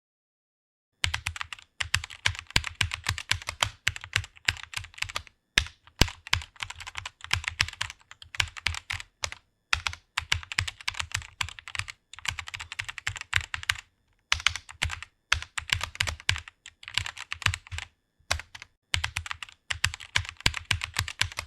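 Fast typing on a computer keyboard: quick runs of key clicks starting about a second in, broken by short pauses.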